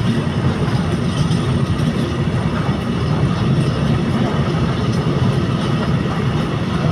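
A long freight train of hopper wagons rolling past at close range, a steady rumble of steel wheels on the rails.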